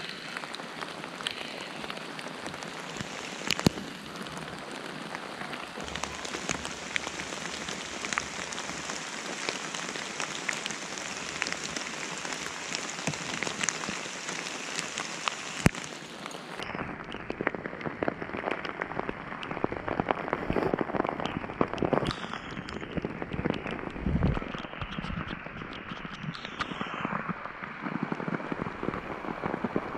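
Steady rain falling through the woods, with sharp ticks of drops striking close to the microphone. About halfway through, the sound turns duller.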